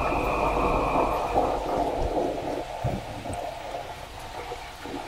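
Steady background hum and hiss, slowly fading, with a few soft knocks.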